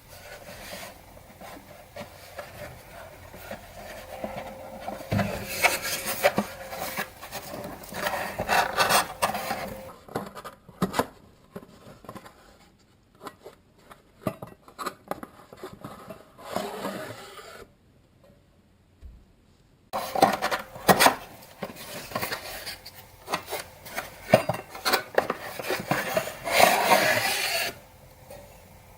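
Hands handling and unpacking a boxed item: rubbing, scraping and rustling of packaging, with scattered clicks and knocks. It comes in two busy stretches with a quieter spell of occasional clicks in the middle.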